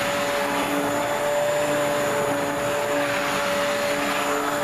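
Hand-held immersion blender running steadily in a pot of hot cream of asparagus soup, pureeing it smooth. Its motor gives a constant whine over churning liquid.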